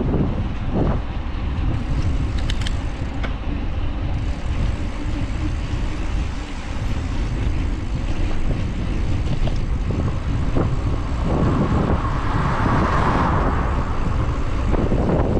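Street traffic heard from a moving bicycle, with steady wind rumble on the microphone; a louder vehicle passes in the last few seconds.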